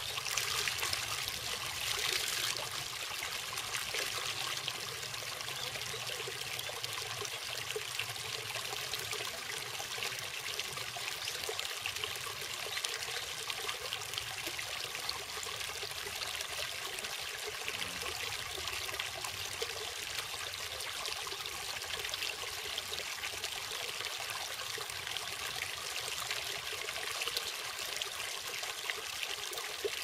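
Shallow water pouring steadily over a small concrete weir step and splashing at its foot, a little louder in the first couple of seconds.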